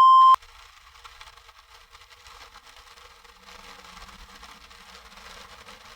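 A loud one-tone censor bleep over a swear word, cutting off abruptly about a third of a second in. Then only faint steady background hiss, with a faint low hum coming in about halfway through.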